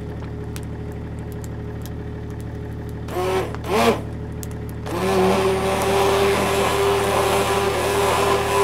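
Handheld immersion blender puréeing boiled potatoes in a pot. It runs with a steady whir, rises and falls in pitch twice a little after three seconds, then runs louder and steadily from about five seconds in.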